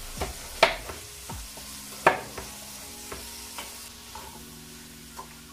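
Sliced onion, tomato and bell peppers sizzling in olive oil in a non-stick wok while a wooden spoon stirs them, with two sharp knocks, about half a second and two seconds in.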